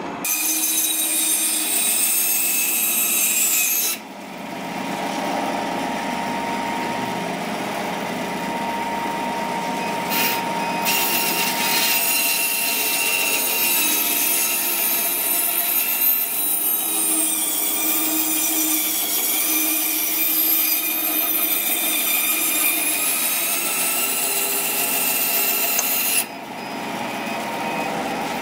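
A drill press boring into a wooden handle block for about four seconds. Then a bandsaw runs steadily, cutting through the wooden handle block.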